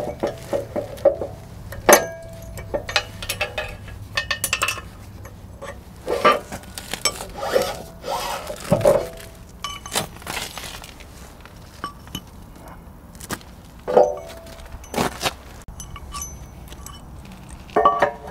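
Heavy 50 mm steel attachment pins clinking, knocking and scraping against the steel bores of a Cat skid steer hammer bracket as they are pulled out and slid into the hammer's top bracket. There is a scattered series of sharp metallic clinks with brief ringing, loudest about two seconds in and again near the middle of the second half.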